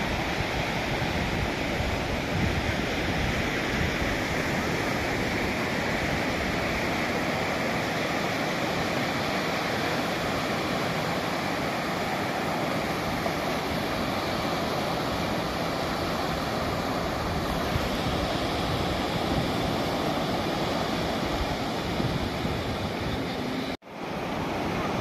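Sea surf washing steadily onto a sandy beach, with wind on the microphone; the sound drops out briefly near the end.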